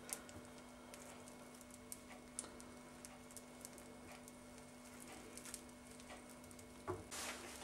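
Faint, scattered crackles and ticks of pancake batter cooking in a buttered frying pan, over a low steady hum, with a short louder noise about seven seconds in.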